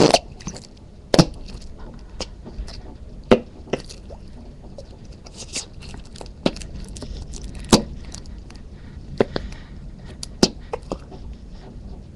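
Noise putty being pushed back into its can, giving irregular wet pops and clicks at uneven intervals rather than one long fart noise, with the loudest pop about a second in; the rapid popping sounds like rain.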